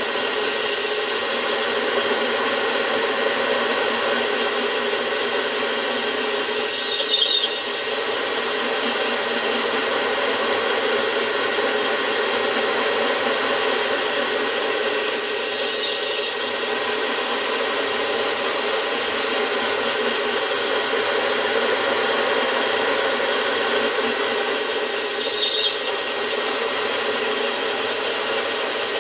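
Homemade benchtop vertical milling machine with a 300 W motor, its 25 mm five-flute HSS roughing end mill turning at about 300 rpm and cutting 20 mm deep into A6061 aluminium plate: a steady cutting noise with a thin motor whine. A brief squeal cuts in three times, about nine seconds apart.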